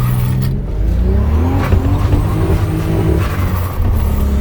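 Turbocharged VR6 engine accelerating hard, heard from inside the cabin. Its pitch climbs for about three seconds, then drops back and runs steadily.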